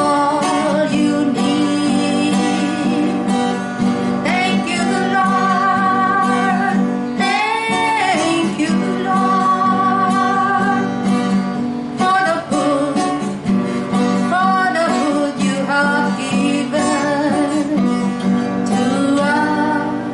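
A woman singing a song while strumming an acoustic guitar, holding some long notes with vibrato.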